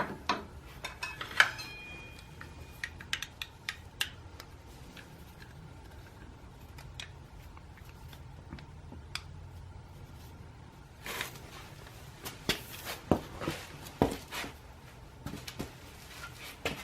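Metal brake pads and caliper parts clicking and clinking as new pads are worked into a motorcycle's front brake caliper: one short ringing clink about a second and a half in, a quiet stretch, then a run of clicks over the last few seconds.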